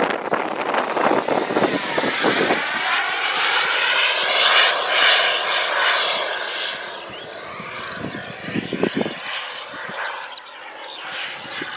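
A Merlin 90 model jet turbine on a TOP RC Cougar flying past with a high whine and rushing noise. It is loudest in the first half and fades away after about six seconds.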